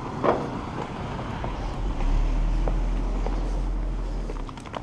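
A car passing along the street with a low rumble that swells about two seconds in and fades out near the end.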